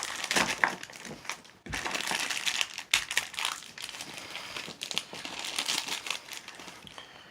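Packaging crinkling, crackling and rustling as a blind-box toy pack is opened and its contents unwrapped by hand, with many sharp irregular crackles. It eases off toward the end.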